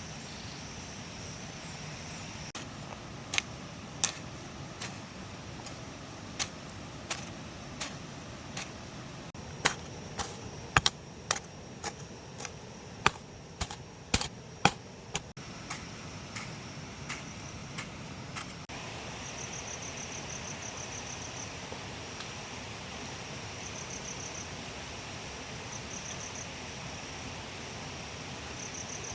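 Irregular sharp clicks and knocks, about twenty spread over some fifteen seconds, over a steady high-pitched buzz that breaks into short pulsing trains in the later part.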